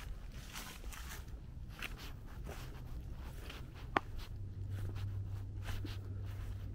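Footsteps of a walker on a path, a series of irregular scuffing steps, with one sharp click about four seconds in. A steady low hum sets in just after the click.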